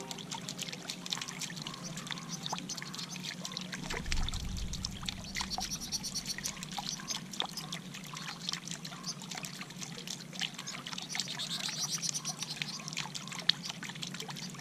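Water from a stone bubbler fountain trickling and splashing into a pond, with quick high chirps from small finches bathing on it. A brief low rumble comes about four seconds in.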